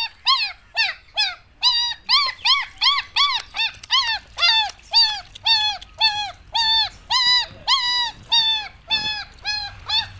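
A young pet crying in distress while being bathed: an unbroken run of short, high-pitched cries, about three a second, each rising and falling in pitch.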